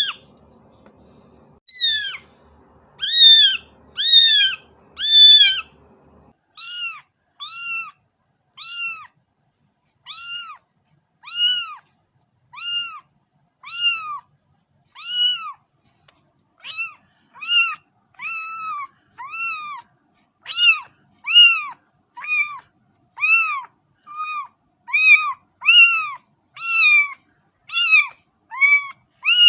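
Cat meowing over and over, short rising-and-falling mews about one a second, coming quicker and louder toward the end.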